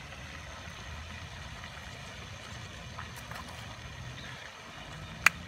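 Quiet outdoor background with a steady low rumble, and a single sharp click near the end.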